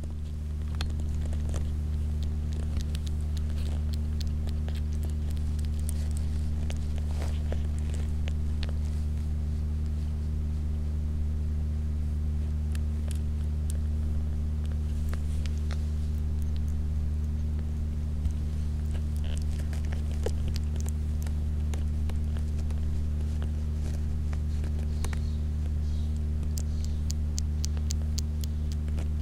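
A steady low electrical hum, with faint, quick wet clicks scattered throughout as a newborn kitten suckles on a fingertip.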